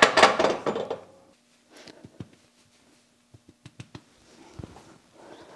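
Steel axle shaft and its universal joint clanking and rattling as they are handled and worked at the vise, loudest in about the first second. After that, only scattered light clicks and taps over a faint steady hum.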